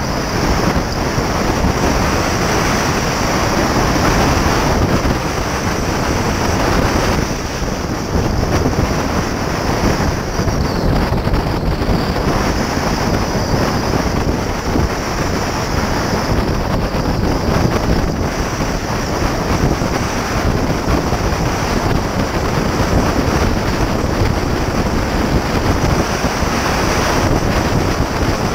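Wind buffeting the microphone of a camera mounted outside a 2006 Porsche Cayman S as it drives at about 35 to 50 mph. The car's road and running noise is underneath.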